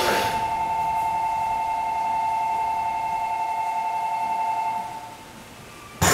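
Station departure buzzer sounding a steady two-tone note for about five seconds, heard from inside a train car with its doors open, then stopping. A sudden loud clunk comes right at the end.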